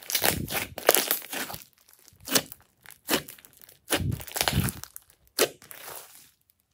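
Hands squeezing, poking and stretching a large mass of glossy slime: crackling, squelching sounds in irregular bursts that stop near the end.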